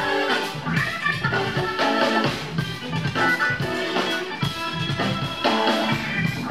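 Live jazz-funk band playing a groove: a Korg Kronos keyboard, electric guitars, bass and drum kit, with repeated chord stabs over the beat.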